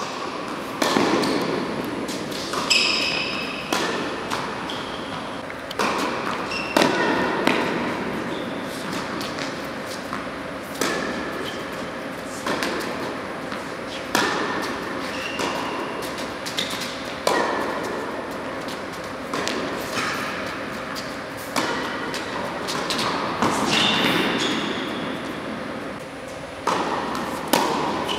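Tennis rally on an indoor hard court: tennis racket strikes on the ball and ball bounces, a sharp pop every second or so, each echoing around a large hall.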